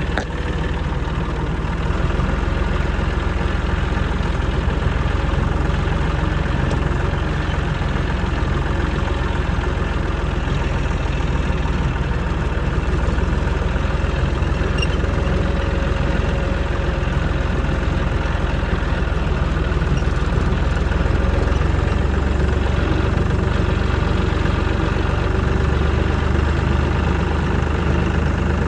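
An engine running steadily at a constant speed, a little louder in the last third.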